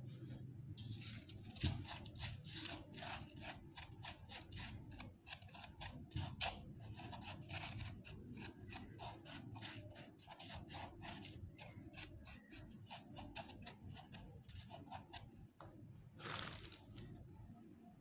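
Hands pressing floral foam into a pot and working dry moss onto it: a dense run of small crackles and crinkles, with a longer rustle near the end.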